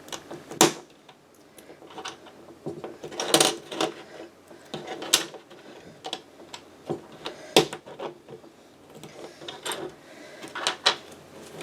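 Plastic Lego bricks clicking and rattling as they are handled and pressed together, in irregular sharp clicks with a few louder snaps.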